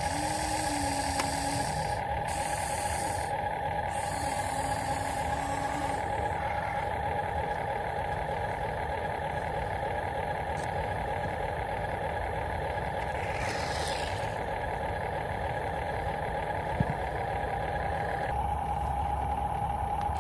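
RC model construction vehicles running with a steady motor whine. Three short bursts of hissing come in the first few seconds, and a deeper rumble joins near the end.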